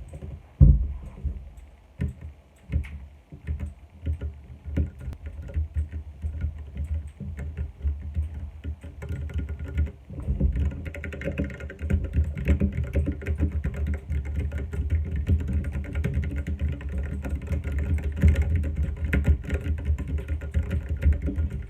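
Ducky One 2 Mini mechanical keyboard with Cherry MX Silver linear switches being typed on: scattered single keystrokes for about the first ten seconds, then fast continuous typing.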